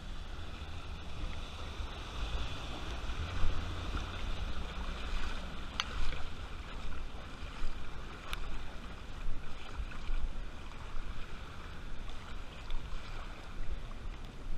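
A car driving slowly through a flooded street, floodwater sloshing and swishing around it over a steady low rumble. Two short clicks, about six and eight and a half seconds in.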